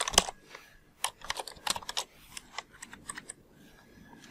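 Computer keyboard typing: quick irregular runs of keystrokes with short pauses between them, the busiest run in the middle.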